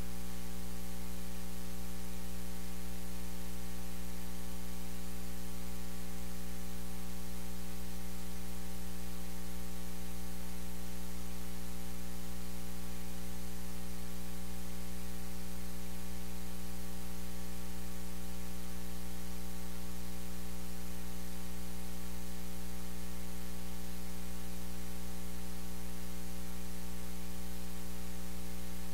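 Steady electrical mains hum, a low buzz with many even overtones, over a constant hiss of static, unchanging throughout.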